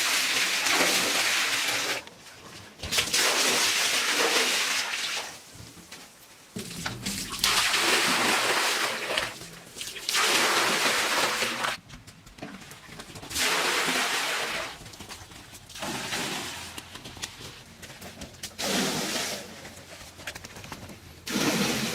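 Water splashing and sloshing in repeated bursts of one to two seconds each, about eight times, with short pauses between them.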